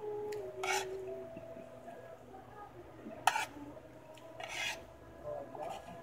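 Metal spoon scraping and clinking on a plate while someone gathers up food: about five short scrapes, the sharpest about three seconds in.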